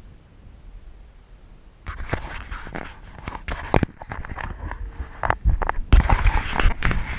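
Irregular scraping and knocking close to the microphone, starting about two seconds in and loudest near the end, over a faint low rumble.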